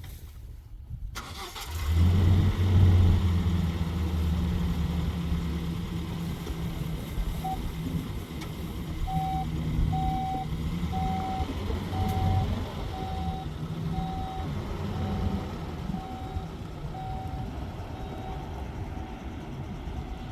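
A motor vehicle's engine starts up about two seconds in and keeps running. From about seven seconds in, a single-pitch warning beep repeats evenly, a little more than once a second.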